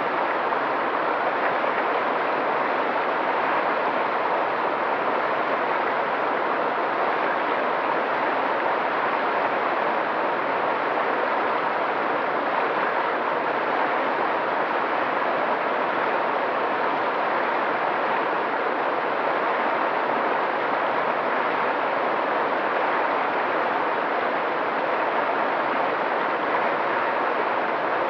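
Mountain stream flowing over rocks: a steady, even wash of water noise that does not change.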